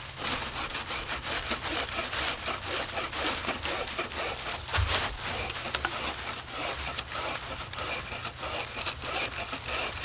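Bow saw cutting through a dead log in steady back-and-forth rasping strokes, with a single dull thump about halfway through.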